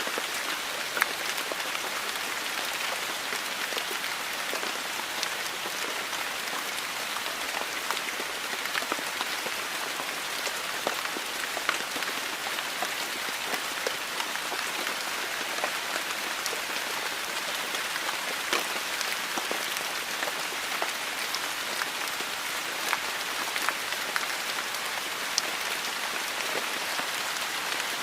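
Steady rain falling, an even hiss with many sharp individual drops striking close by.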